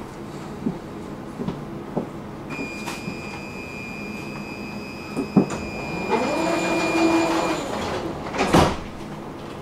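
Tram standing at a stop while its doors close: a steady high warning tone sounds for about five seconds, a whine rises and levels off, and the sliding doors shut with a thump near the end. Scattered clicks and knocks come from the tram before the tone.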